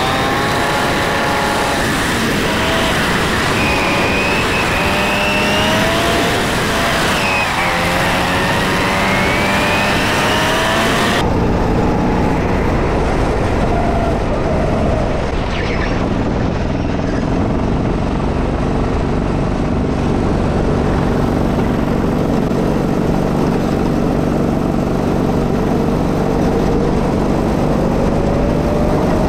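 Go-kart engine running at speed, its pitch rising and falling as the kart accelerates and lifts off, over a dense rush of wind and road noise. About eleven seconds in the sound changes abruptly: the high hiss drops away, leaving a steadier, lower engine drone and rumble.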